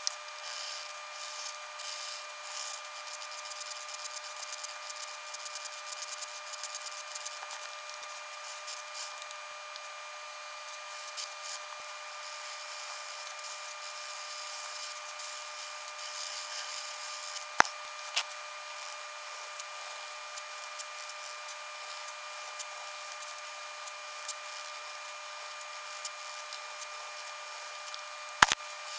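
Pencil scratching on grid paper: a continuous scratchy rustle dotted with small clicks, over a steady high-pitched hum. Two sharp clicks stand out, one a little past halfway and one near the end.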